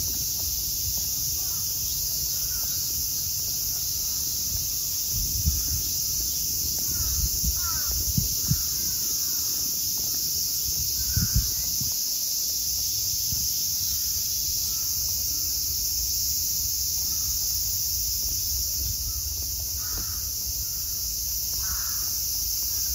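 Crows cawing several times over a steady high-pitched insect drone, with a few low thumps partway through.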